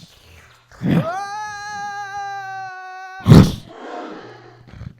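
Human voice imitating a creature's roar: a short rough growl, then a long, steady, high held cry. It ends in a loud sharp burst, the loudest moment, followed by quieter growling.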